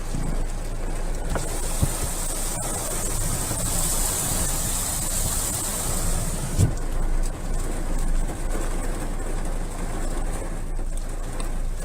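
Strong wind buffeting the microphone in a storm: a steady, gusty rumbling rush with a higher hiss in the first half, and two short thumps, one about two seconds in and one about six and a half seconds in.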